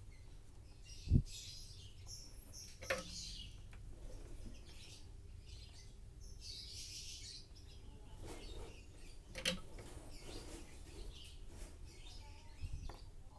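Birds chirping faintly in the background, with a few handling knocks and clicks: a dull thump about a second in and sharper clicks near 3 and 9 seconds.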